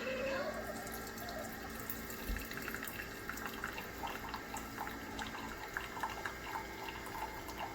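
Keurig K-Mini single-serve coffee maker brewing: coffee trickling and dripping into the mug over a low steady hum, which stops about five and a half seconds in while the dripping goes on, as the brew finishes.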